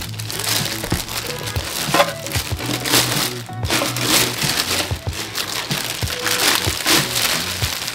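Plastic bag crinkling steadily as it is handled and pulled off a clear plastic juicer jug, over background music.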